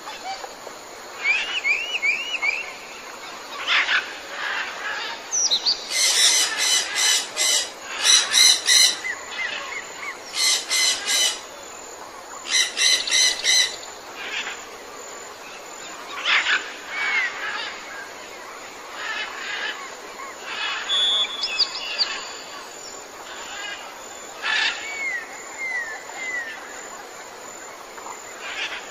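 Wild birds calling over a steady outdoor background: short falling chirps, scattered whistles, and several loud, fast rattling calls about a second long each.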